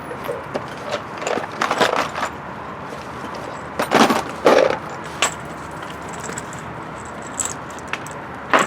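Metallic clinks and clicks of cartridges and rifle gear being handled, with a louder pair of knocks about four seconds in.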